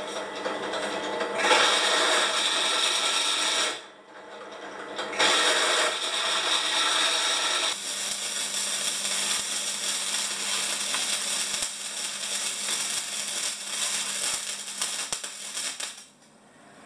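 Bench drill press boring into a steel tube in two runs with a short pause between them. Then electric arc welding on a steel frame, a steady crackling hiss for about eight seconds that cuts off near the end.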